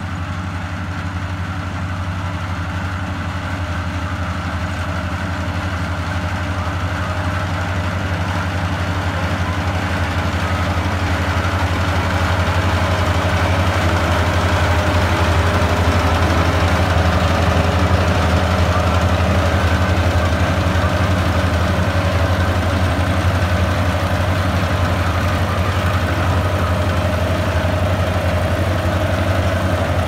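Kubota SR40 combine harvester working in a rice field: its diesel engine and threshing machinery run steadily with a low hum. It grows louder over the first half as the machine comes close, then holds.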